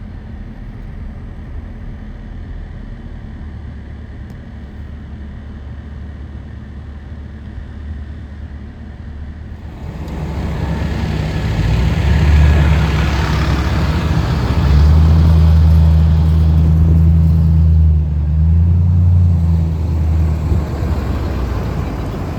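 Fire truck's diesel engine running with a low rumble, growing much louder about ten seconds in to a steady low drone that eases off near the end.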